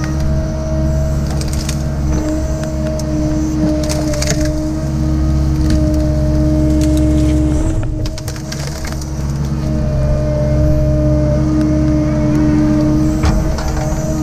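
Cat 306 excavator's diesel engine running under load with a steady hydraulic whine as the grapple lifts and swings a pine tree, the level dipping briefly about halfway. A few sharp cracks from the brush being handled.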